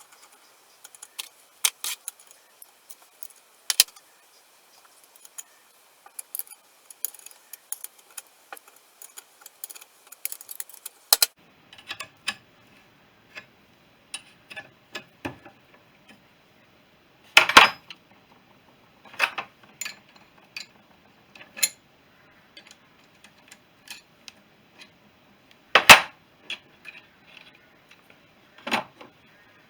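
Metal tools and engine parts clinking and clanking as they are handled, in irregular sharp clicks, with two louder clanks partway through and near the end.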